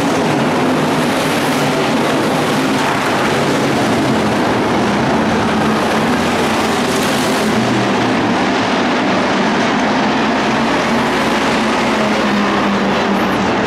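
Engines of IMCA Hobby Stock race cars running loud and steady as they circle a dirt oval track.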